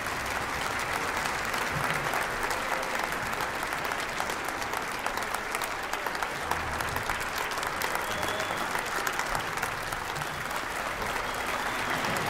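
A large concert audience applauding, a dense and steady clapping.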